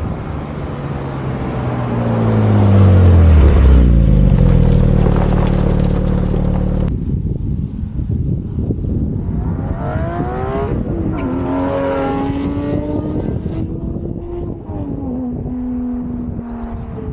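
Porsche 718 Spyder's 4.0-litre flat-six exhaust. It opens with a loud stretch whose engine note falls in pitch, then holds steady and cuts off abruptly about seven seconds in. It then pulls up through the revs, the pitch dropping back twice, near the middle and again near the end, as it shifts up.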